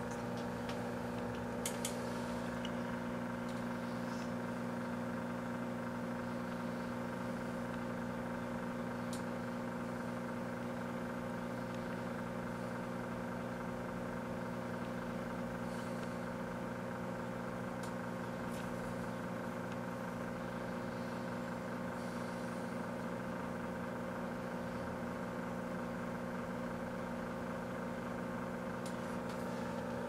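Kenmore microwave oven running: a steady, even electrical hum that holds unchanged throughout.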